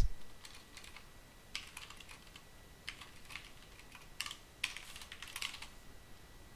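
Typing on a computer keyboard: short runs of keystrokes with pauses between them, the longest run about halfway through.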